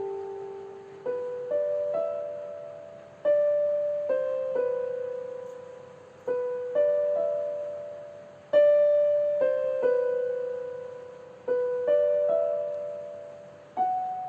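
Slow, gentle background piano music: single notes in a simple repeating melody, struck one after another with gaps of about half a second to a second and a half, each left to ring and fade.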